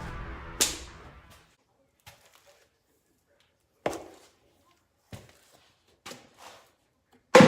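A strummed guitar chord dies away, then a sharp click and a few dull thuds spaced about a second apart, the loudest at the very end.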